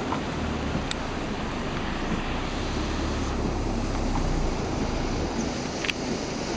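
Heavy rain falling steadily, over the low steady hum of an idling car, with a few sharp taps of drops.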